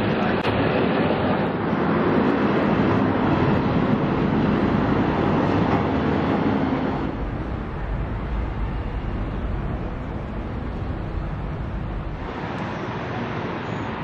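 Steady roar of dense road traffic. About seven seconds in it drops to a quieter, lower rumble of outdoor street noise.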